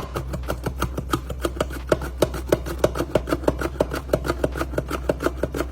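Yellow squash being sliced thin on a hand slicer: a fast, even run of sharp strokes, about seven a second.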